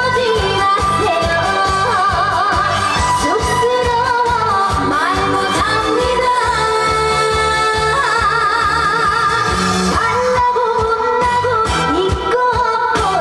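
Trot song performed live: a young female singer's voice with wide vibrato over a backing track with a steady beat.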